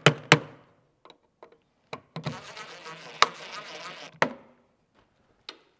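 Cordless impact driver driving a screw into a wall fitting: a few sharp clicks at the start, then a steady buzzing run of about two seconds, ending in a sharp click.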